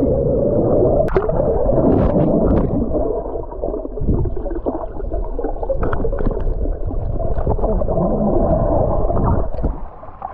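Muffled rushing and gurgling of swimming-pool water and air bubbles heard under water, with scattered small clicks and pops.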